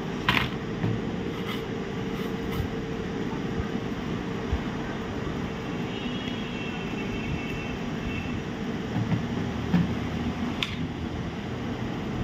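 Steady ventilation hum of a small room, with a few light clicks and taps as a laptop motherboard and its display ribbon cable are handled.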